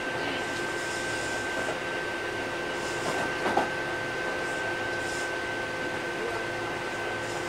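Inside a Kintetsu 8000 series electric train car: a steady hum carrying a constant high tone, with a couple of small clicks about three and a half seconds in.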